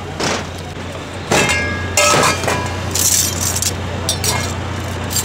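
Stainless-steel mixing bowls and a wire rack clinking and clattering as they are handled and set down on a metal counter, several knocks with a brief metallic ring.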